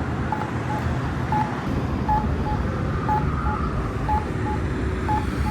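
Campbell Pedsafety accessible pedestrian signal push button sounding its locator tone: short, even beeps at one pitch, about two a second, over a low rumble of traffic. The locator tone marks the wait (don't-walk) interval before the walk message.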